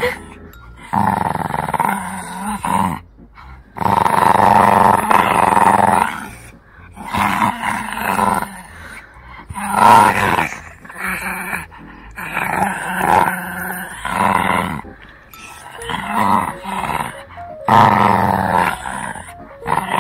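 Shih Tzu puppy growling while tugging on a braided rope tug toy, in repeated bouts of one to two seconds with short pauses between them. It is play growling during tug-of-war.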